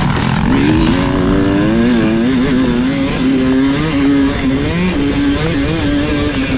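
Dirt bike engine running hard under the rider as the bike races along a motocross track. Its pitch dips right at the start, climbs with the throttle, wavers through a few throttle changes, then holds steady near the end.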